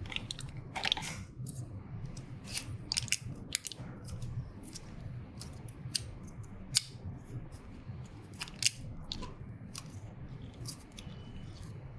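Scattered small plastic clicks and taps from hands working the printer's ink dampers and their fittings during varnish loading, over a low steady hum.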